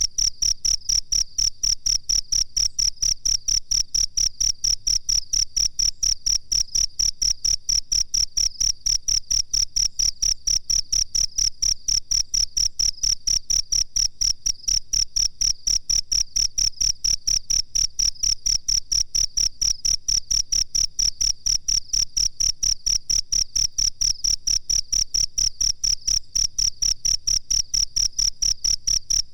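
Cricket chirping steadily: a high, evenly spaced trill of short pulses, several a second, at an unchanging pace and loudness.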